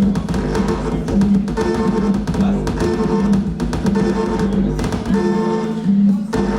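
Music: a sequence of held pitched notes, each about half a second long, over a steady run of clicking percussion.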